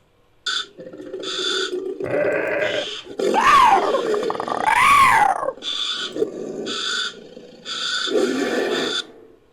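Invented creature sound effect built from layered animal calls: short shrill bird-of-prey-like cries repeated every second or so, two loud screeches that rise and then fall in pitch about 3.5 and 5 seconds in, and low growling underneath.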